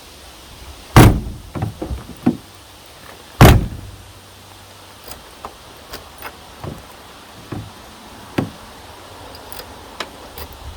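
1954 DeSoto car door shut twice, about two and a half seconds apart, the new replacement door latch catching each time. Lighter clicks and taps of the handle and latch follow.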